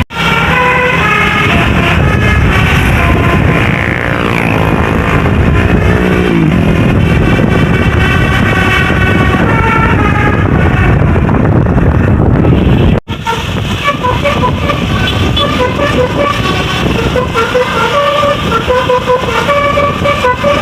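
Bus's basuri 'telolet' multi-tone horn playing tunes of stepped notes, with a long falling slide about four seconds in, over the bus's engine and road rumble. It breaks off sharply about 13 seconds in, and another horn tune follows.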